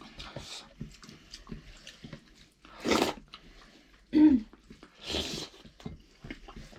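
Close-miked eating: chewing with small wet mouth clicks. There is a louder hissing slurp or breath about three seconds in, another just after five seconds, and a short low hum-like sound between them.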